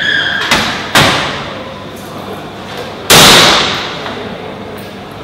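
Blows against a vending machine: two sharp knocks in the first second, then a heavier bang about three seconds in that rings on briefly.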